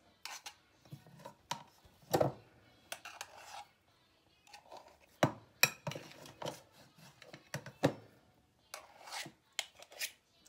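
A steel spoon scraping stiff murukku dough from a bowl and knocking against a brass murukku press as the press is filled: irregular scrapes with several sharp metal taps.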